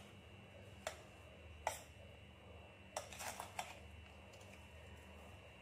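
Metal spoon clinking and scraping against a steel bowl as lemon pieces coated in chilli powder, salt and sugar are stirred: a few single clicks in the first two seconds, then a quick run of them about three seconds in.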